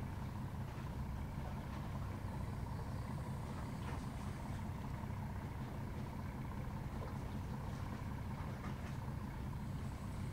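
Steady low engine drone with a faint, thin hum above it.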